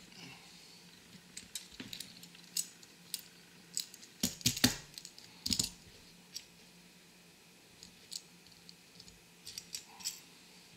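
Clicks and light clinks of small die-cast toy car bodies, chassis and parts being picked up and set down on a table, with a cluster of louder knocks about four to six seconds in.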